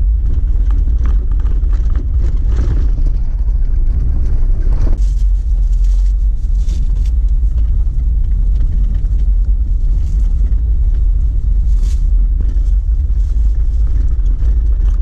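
Jeep Wrangler driving along a dirt forest road: a steady low rumble from the engine and tyres, with scattered clicks and rattles from gravel and the body.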